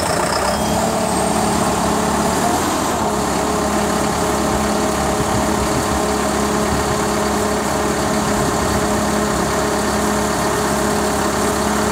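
John Deere tractor's diesel engine idling steadily just after being started.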